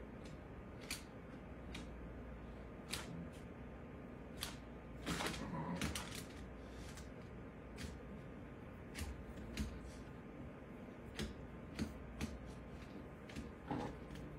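A French bulldog's claws clicking and tapping irregularly on a hardwood floor as she steps about, with a louder scuffle of sound around five to six seconds in.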